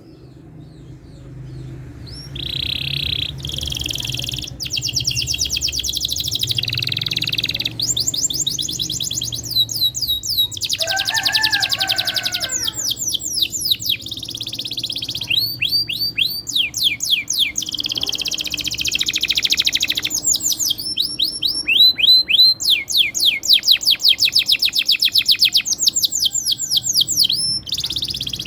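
Domestic canary singing a long, unbroken rolling song: fast trills of rapidly repeated down-sweeping notes, one trill running straight into the next, with a lower warbling phrase about eleven seconds in.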